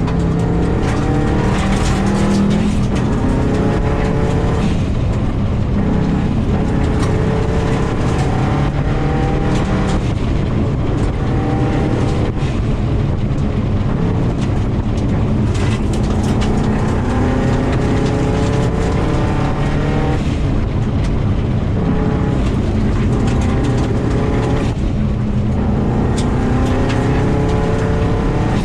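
2000 Subaru WRX's turbocharged flat-four engine driven hard, heard from inside the car: the revs climb again and again and drop back every few seconds at gear changes or lifts. Steady tyre noise on gravel runs underneath, with sharp ticks of stones striking the car.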